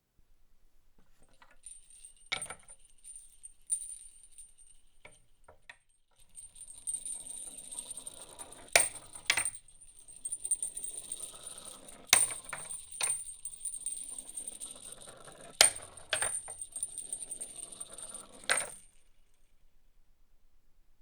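A small toy being played with: a thin, steady high-pitched ringing over a jingling rattle, broken by several sharp clicks. It starts faintly, grows fuller partway through and stops near the end.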